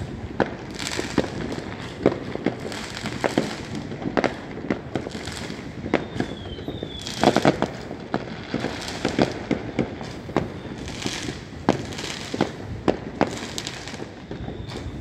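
Aerial fireworks bursting: irregular bangs and crackles throughout, with a quick cluster of the loudest bangs about seven seconds in.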